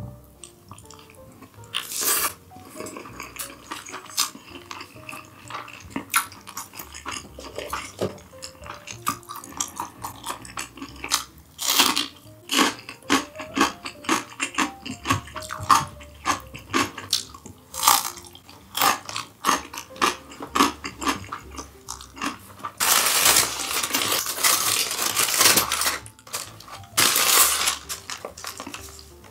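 Close-up eating sounds: chewing with many small clicks of utensils against dishes, with two longer noisy bursts near the end, over light background music.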